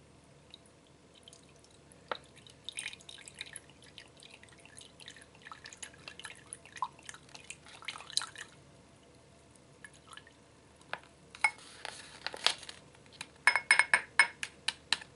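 Whisky trickling from a squeezed plastic pouch's spout into a cut-glass tumbler, in an irregular patter of drips. Near the end comes a louder, quicker run of ringing drips as the liquid splashes into the glass.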